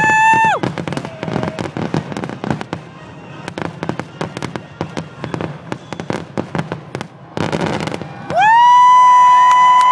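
Fireworks finale: a dense run of rapid booms and crackling reports for about seven seconds. A horn sounds briefly at the very start, and about eight seconds in a horn begins a loud, long steady blast, with a second horn joining it a second later.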